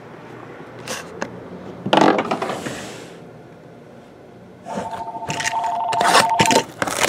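A shrink-wrapped cardboard hobby box is handled with knocks and a loud rustle about two seconds in. Near the end its plastic wrap is scraped and slit open. A steady two-note pulsing electronic tone sounds for about two seconds in the middle.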